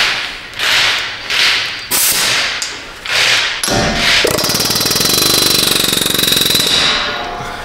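Pneumatic air tool hammering in several short bursts, then running steadily for about three seconds with a high whine before fading. It is pushing the CV axle back through the front wheel bearing hub.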